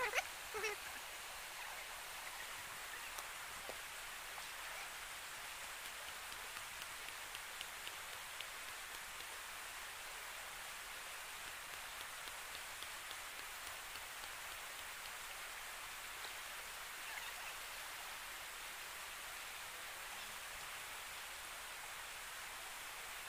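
Steady, even hiss of water with a few faint scattered ticks and patters.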